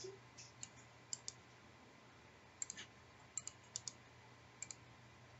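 Computer keyboard keys being struck slowly and unevenly, a dozen or so sharp clicks, some single and some in quick pairs, over a faint low hum.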